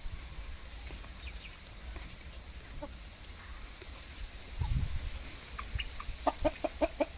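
Chickens clucking: a few faint scattered clucks, then a quick run of six or seven short clucks near the end. A brief low rumble comes about halfway through.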